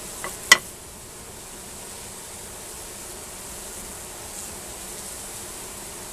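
Honeybees of a Carniolan colony buzzing steadily around the opened top bar hive, stirred up as their comb is cut away. A sharp knock, with a fainter one just before it, comes about half a second in.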